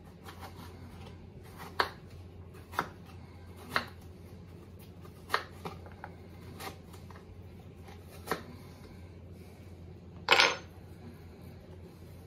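Knife chopping food on a wooden cutting board: about six short, sharp knocks at uneven intervals. A little past ten seconds in comes one louder, longer scrape or clatter, about half a second.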